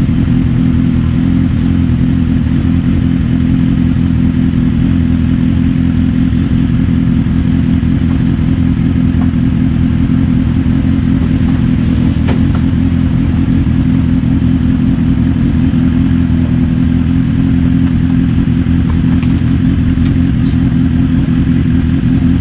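Motorcycle engine idling, loud and steady.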